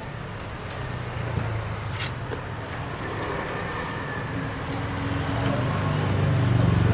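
Street traffic: a motor vehicle's engine hum growing steadily louder over several seconds. There is one light click about two seconds in.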